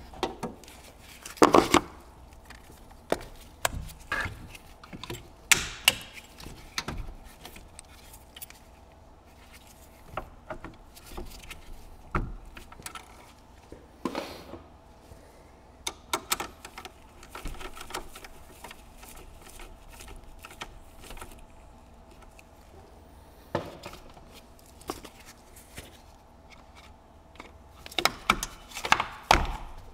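Irregular clicks, knocks and plastic clatter from hands working the positive cable and terminal on a car battery under the hood. A quicker burst of clatter near the end comes as the red plastic terminal cover is handled.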